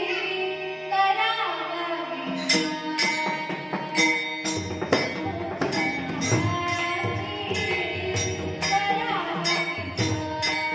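Warkari devotional bhajan music. A held melodic line opens it; from about two and a half seconds in, small hand cymbals strike a steady rhythm, and a low drum joins about two seconds later.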